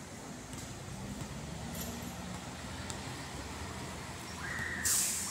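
Fire truck's diesel engine running low and steady as the ladder truck pulls away, with a brief high tone about four and a half seconds in. Near the end comes a loud, short hiss of air, typical of the truck's air brakes releasing.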